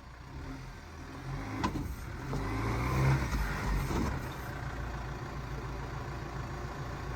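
Off-road vehicle's engine revving under load on a rough trail, rising to a peak about three seconds in, then running steadily. A sharp knock about a second and a half in.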